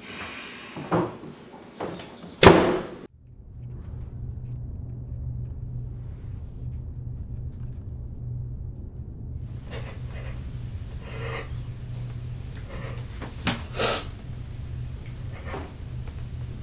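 A door slammed shut about two and a half seconds in, after a couple of lighter knocks. Then a steady low hum, with a few short sounds over it in the last few seconds.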